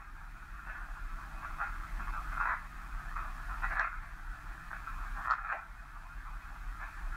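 Narrow, radio-like static with faint, irregular bursts of garbled sound every second or so, over a low steady hum. It is ghost-hunting audio played back or listened to for spirit voices after a question to the spirit.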